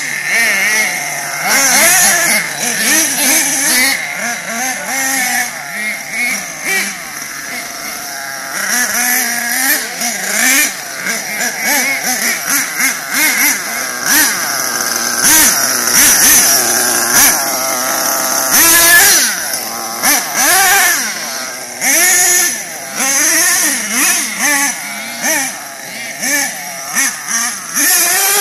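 Small two-stroke nitro glow engine of a radio-controlled monster truck revving hard and easing off again and again, its high, buzzing pitch rising and falling with the throttle.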